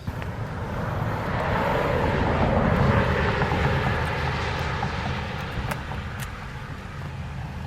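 Engine noise of a passing vehicle, swelling for about three seconds and then slowly fading.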